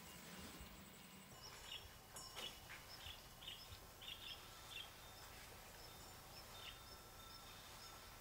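Faint quiet ambience with a run of short, high chirps from about two to five seconds in and one more a little later, plus a single soft click.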